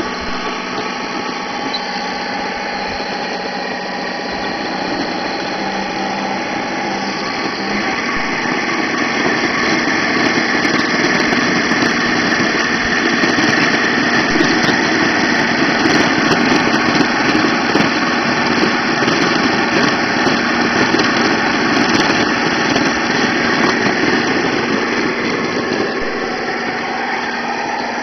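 1/6 scale radio-controlled M4 Sherman tank driving on asphalt, giving a steady engine-like running noise. It grows louder through the middle as the tank comes close, then eases off near the end.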